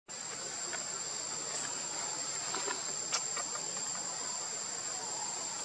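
Steady high-pitched insect chorus, one constant shrill tone over a lower hiss, with a few faint ticks, the clearest about three seconds in.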